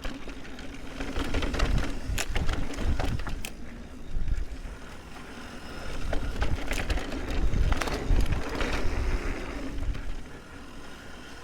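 Mountain bike descending a rough dirt trail: tyres rumbling over dirt, roots and bumps, with frequent sharp rattles and knocks from the bike as it hits them, the noise rising and falling with the terrain.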